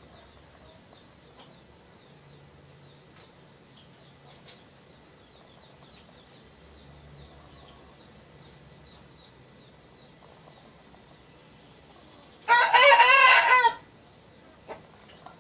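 A rooster crows once, loud and wavering, near the end. Before it there is only a faint background of small birds chirping, many short falling chirps.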